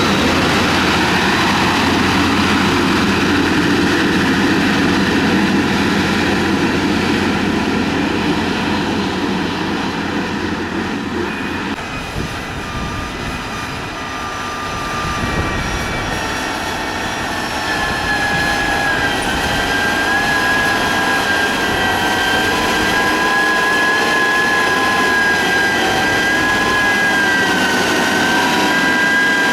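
Motor grader's diesel engine running steadily, its low note shifting about twelve seconds in, with a high whine rising in after about sixteen seconds and holding on.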